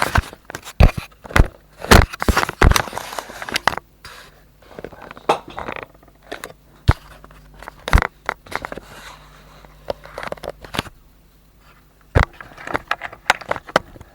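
A small cheap plastic phone charger being handled roughly and dropped to test whether it breaks. It makes a quick run of sharp plastic knocks, clicks and scrapes over the first few seconds, then single knocks every second or two.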